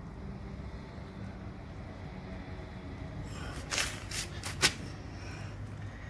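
Steady low background rumble with a cluster of short scratchy noises about four seconds in. No alarm comes from the smoke detector held over the burning paper: it is not responding to the smoke.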